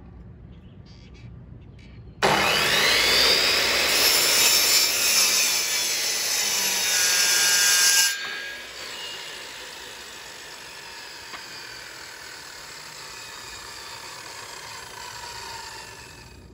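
Electric miter saw starting up about two seconds in with a rising whine and cutting through an old rough barn board for about six seconds. It is then switched off, and the blade winds down with a slowly falling whine.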